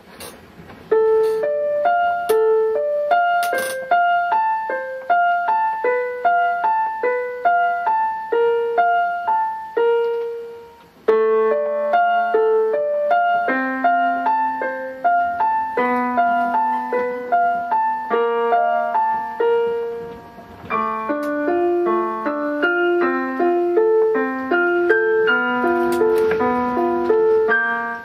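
An electronic keyboard with a piano sound is played by a piano student. It plays a steady run of single notes in repeating broken-chord patterns, starting about a second in. The piece falls into three phrases with short breaks at about ten and twenty seconds, and held lower notes join in from the second phrase.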